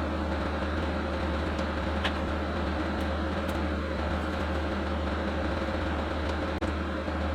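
Steady mechanical hum of a running motor-driven machine, with a few faint clicks; it drops out for an instant near the end.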